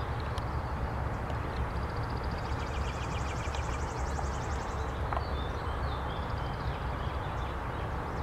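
Steady outdoor background rumble with a small songbird's rapid trill about two seconds in, followed by a few short chirps.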